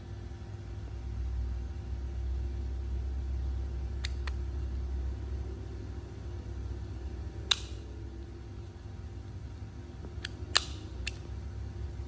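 A steady low mechanical hum with several sharp clicks, the two loudest about halfway through and near the end.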